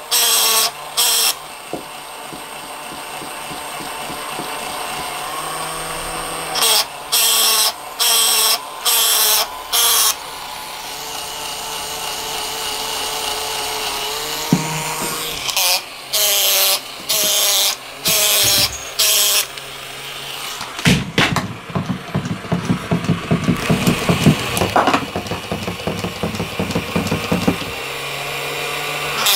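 Motorized plush toy duck running: a steady small-motor whir with loud bursts of its built-in sounds about once a second, then from about twenty seconds in a rapid clicking as it waddles along.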